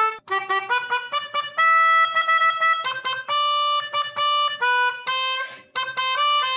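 Background music: a bright, reedy melody of short and held notes, with no bass or drums.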